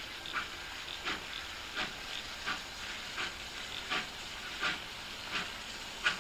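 Victorian Railways R class 4-6-4 steam locomotive R766 working under steam. Its exhaust chuffs come about every 0.7 s, with fainter beats between, over a steady hiss.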